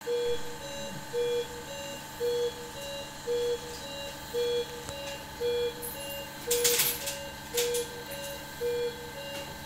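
Operating-theatre patient monitor beeping in a steady pattern: a louder lower tone alternating with a shorter, higher one, each about once a second. A brief rustle or clatter comes about two-thirds of the way through.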